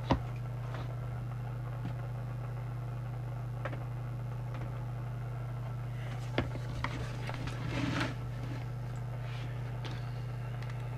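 Steady low electrical hum on the workbench, with a sharp click right at the start and a few light handling clicks and a brief rustle about six to eight seconds in.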